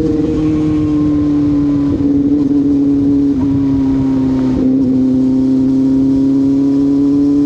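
CFMoto 500SR Voom's parallel-twin engine running at steady revs through an SC Project carbon slip-on exhaust. The note dips slightly in pitch through the middle and climbs back near the end.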